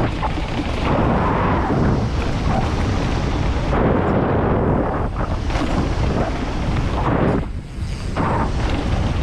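Mountain bike descending a dirt downhill trail at speed: wind buffeting the camera microphone with the rumble and rattle of the tyres and bike over the ground, loud and continuous, with a brief lull about seven and a half seconds in.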